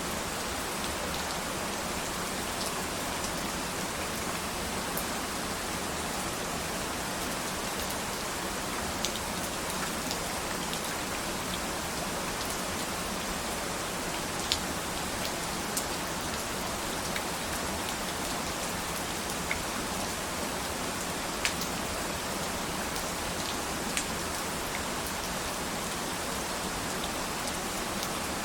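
Steady rain falling, an even hiss with a sharper single drop tick every few seconds.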